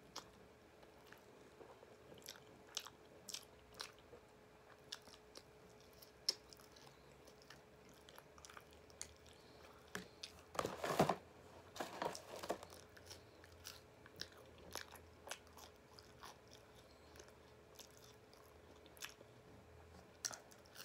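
Close-up chewing and biting of fried chicken tenders dipped in gravy and mashed potato: soft wet mouth clicks and small crunches. A little past the middle come two louder, longer handling noises, and a faint steady hum sits underneath.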